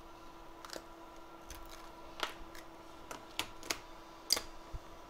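Scattered light clicks and taps, about six, as a thin metal pry tool works around the edge of an iPhone 7's display and the screen is lifted from the frame. The sharpest click comes a little after four seconds in, over a faint steady hum.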